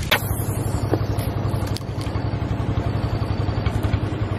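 A small engine running steadily with a fast, even throb. A sharp click comes right at the start.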